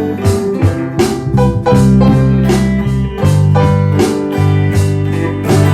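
A band playing an instrumental passage, with guitar and keyboard chords over held bass notes and a steady beat of about two strikes a second, with no singing.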